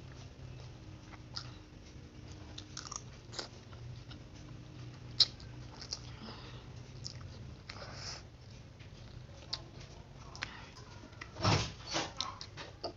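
Mouth sounds of eating instant fried noodles: slurping up strands and chewing, with scattered light clicks of a spoon and fork on the plate, one sharp click about five seconds in, and a louder burst of noise near the end, over a steady low hum.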